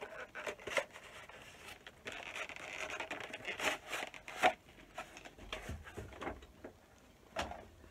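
A diary kit's box and packaging being opened and handled by hand: scattered clicks and rustles, with a longer scraping rustle about two seconds in.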